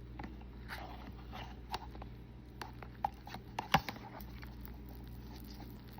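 Close-up eating sounds: soft chewing and mouth smacks with scattered small clicks, one sharper click a little past halfway, over a steady low hum.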